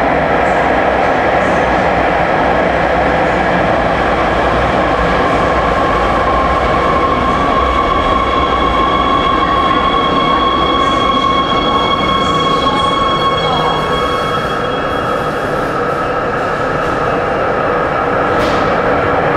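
Hohhot Metro Line 2 subway train pulling into an underground station and braking to a stop, with a steady rumble under a high whine that falls away about two-thirds of the way through. A brief hiss comes near the end as the train stands.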